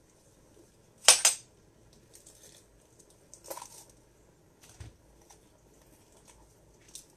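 Sporadic light clicks and clinks as red onions are peeled with a kitchen knife, the loudest a sharp clink about a second in, with softer taps and a low thud later.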